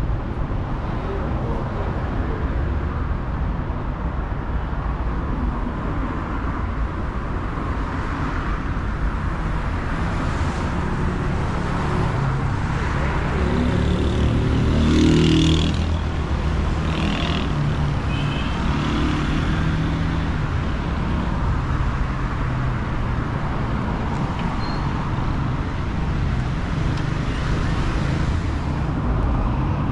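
City street traffic: cars driving past with engines running, a steady rumble that swells as a louder vehicle passes about halfway through.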